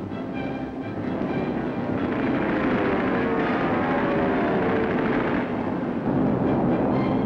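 Propeller aircraft engines droning on an old 1940s film soundtrack, with the pitch falling in the middle as a plane passes.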